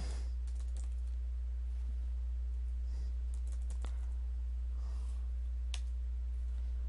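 Computer keyboard typing: a few scattered, separate keystroke clicks over a steady low hum.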